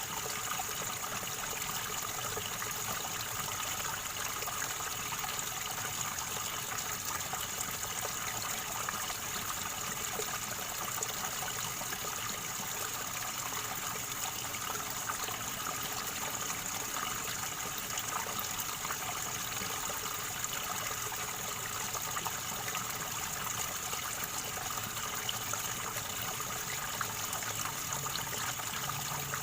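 River water gurgling and trickling steadily, with no break or change.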